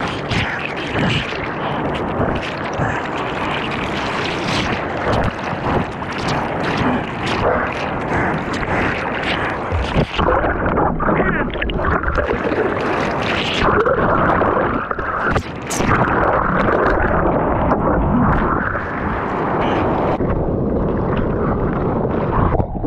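Whitewater from breaking surf churning and splashing around a camera held at water level, with a steady rush and many short splashes; the sound turns duller about halfway through and again near the end.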